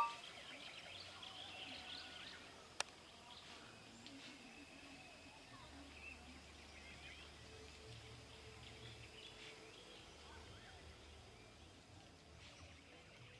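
Faint birdsong: scattered bird chirps, thickest in the first couple of seconds and thinning out afterwards. A single sharp click comes a little under three seconds in.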